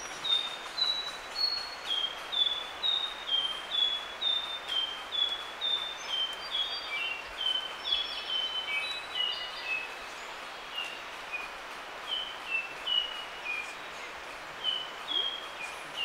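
Northern nightingale-wren (Microcerculus philomela) singing: a series of single, pure whistled notes at random, wandering pitches. About two notes a second, spacing out to roughly one a second in the second half.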